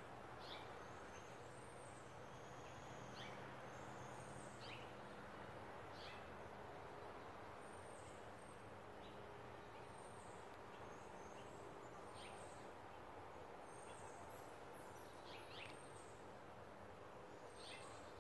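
Faint outdoor ambience with small birds chirping: short high chirps and quick falling notes roughly once a second, over a steady low hum.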